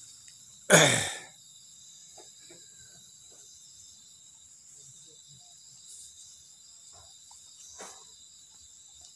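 Night insects, crickets or the like, chirring steadily at several high pitches. About a second in, a single loud, brief thump stands out.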